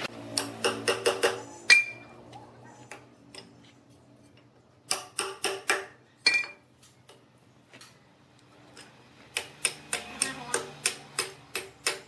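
Hammer striking a metal marking stamp against the end grain of a large log: three runs of quick, sharp taps. The first two runs each end in a harder blow that leaves a brief metallic ring.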